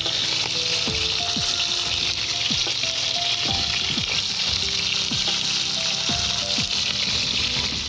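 Pork ribs sizzling in hot oil in a cast-iron kazan, searing to a golden crust: a steady, dense frying hiss.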